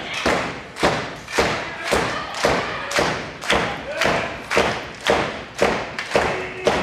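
A wrestler's repeated blows to his kneeling opponent's head: a steady run of thuds, about two a second.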